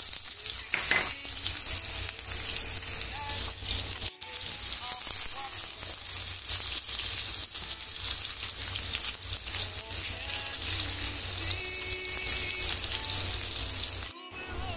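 Chopped onion and garlic sizzling steadily in hot oil in a nonstick frying pan, stirred at times with a silicone spatula. The sizzle breaks off briefly about four seconds in and again near the end.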